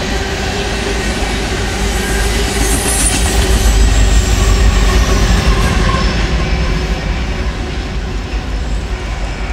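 Freight cars rolling past close by: a steady rumble and clatter of steel wheels on rail, loudest midway and easing off slightly near the end.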